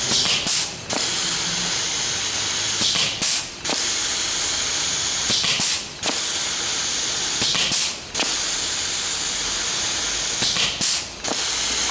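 AP-1 pneumatic blind riveter setting rivets five times, about every two and a half seconds: each installation is a short burst followed by a brief dip in the sound. Under it runs the steady hiss of the tool's built-in vacuum, which sucks the spent mandrels to the back.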